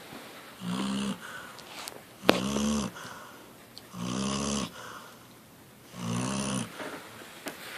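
Dog snoring loudly in its sleep: four snores about two seconds apart, each about half a second long, with softer breaths between them. A sharp click comes at the start of the second snore.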